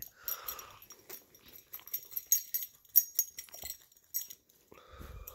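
Puppy scratching herself with a hind leg, her collar's metal tags jingling in quick irregular rattles for about four seconds.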